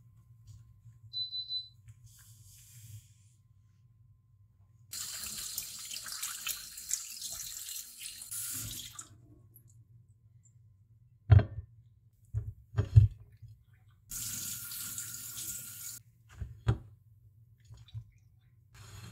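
Kitchen tap running into a stainless steel sink in two spells, about four seconds and then two, while lemons and limes are rinsed. Between and after the spells come several sharp knocks, the loudest in the middle, as the wet fruit is set down on a ceramic plate.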